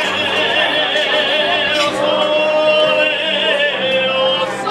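Male tenor singing bel canto opera: long-held notes with a wide vibrato, a short break about two seconds in, then another sustained phrase.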